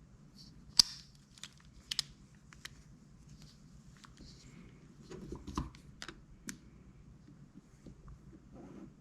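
Handling noise from fishing reels being picked up and set down: scattered sharp clicks and light knocks, the sharpest about a second in, with a cluster and a dull bump about five to six and a half seconds in.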